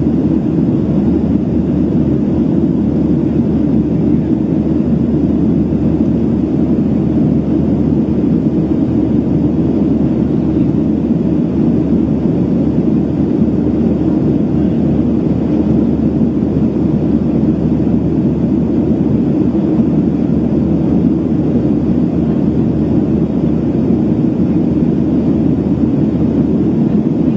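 Steady cabin noise inside a Boeing 737-700 on approach with its flaps extended: an even, low rush of engines and airflow that does not change.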